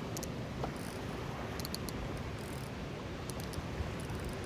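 Steady rushing noise of rough, churning tailwater below a dam, with a few short runs of light clicking from a fishing reel being cranked, about a second or so apart.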